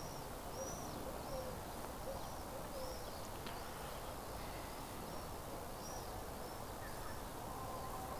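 A small bird giving short, high chirps over and over, about one a second, over a steady low outdoor background hiss.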